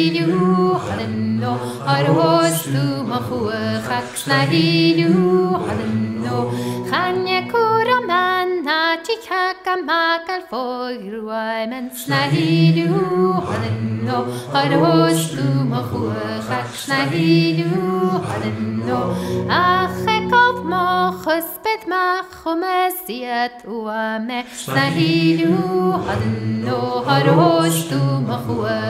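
Background music: a folk song sung by voices in harmony, with long held notes and brief breaths between phrases.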